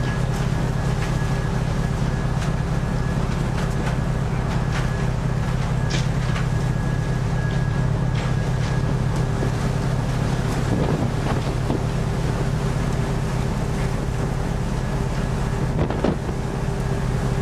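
Steady low drone of a stern trawler's engine and deck machinery, with wind buffeting the microphone and a few short knocks.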